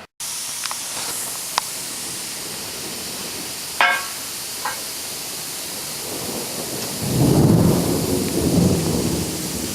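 A steady hiss, then, about seven seconds in, a low rolling rumble of thunder swells up and then eases off.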